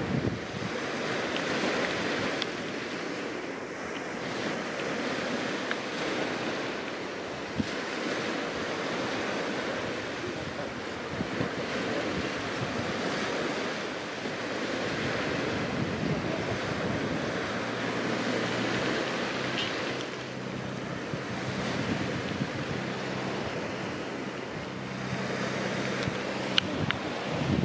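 Sea waves washing onto a shingle-and-rock seal beach, with gusts of wind buffeting the microphone. A faint low hum is layered over it in the second half.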